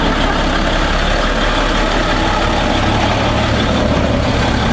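Ford F-650 truck's engine running at idle, a steady low engine note as the truck rolls slowly.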